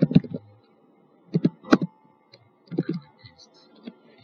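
Computer keyboard keystrokes and clicks in a few short clusters, as a date is typed into a web form and text is pasted in.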